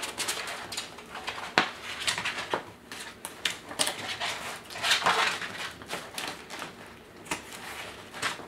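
Hands handling a light tent's backdrop sheet and frame: rustling with scattered clicks and knocks, the sharpest about one and a half seconds in, and a longer rustle around five seconds in.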